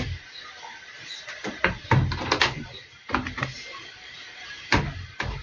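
Irregular hollow knocks and clicks of PVC pipe fittings being pushed onto a vertical downpipe and worked into place by hand, fitted dry without glue. The loudest knocks come around two seconds in and again near the end.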